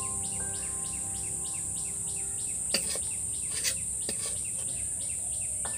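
Crickets chirping in a steady rhythm, about three pulses a second, over a constant high hiss, with soft held music notes and a few light clicks.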